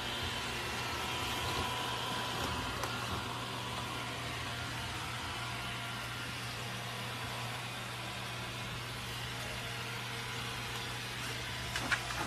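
Ecovacs Deebot robot vacuum running on a hardwood floor, a steady motor and brush whir. A few quick taps and knocks come near the end.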